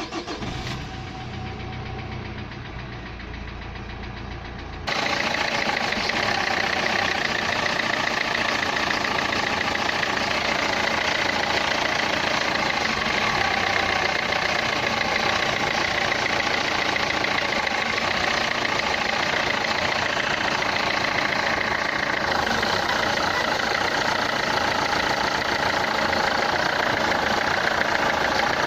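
Renault Clio 3's 1.5 dCi diesel engine idling with a steady clatter, which becomes much louder and sharper about five seconds in. This is an engine noise that the owner places in the injectors.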